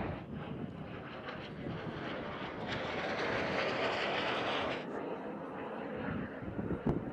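Jet noise from PZL TS-11 Iskra jet trainers in flight. The rushing sound swells with a rising whine from about three seconds in, then drops off abruptly about five seconds in.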